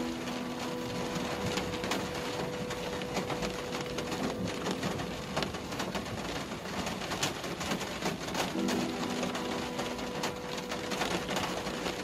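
Rain heard from inside a moving car: a steady wash of noise with many small sharp clicks of drops striking the glass and body. Under it runs a low, steady mechanical hum that fades out about five seconds in and comes back about three seconds later.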